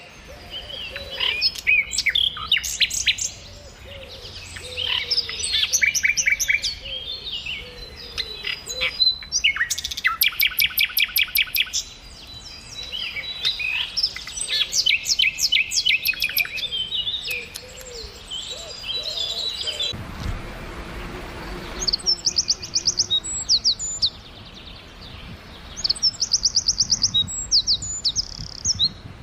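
Several songbirds chirping and singing, with fast trills of rapidly repeated high notes. A short burst of low rumbling noise comes in about two-thirds of the way through.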